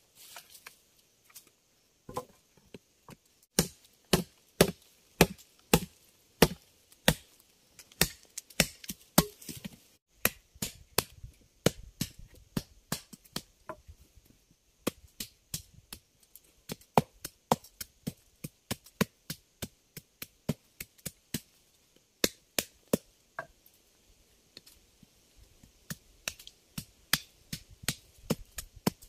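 Machete chopping into wooden sticks: a long run of sharp strokes, about two a second, with a short pause about three-quarters of the way through before it picks up again.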